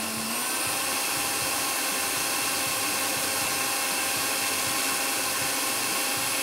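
Electric blender running steadily, grinding basil leaves, cashews and lemon juice into a pesto paste. Its motor pitch rises a little just after the start, then holds.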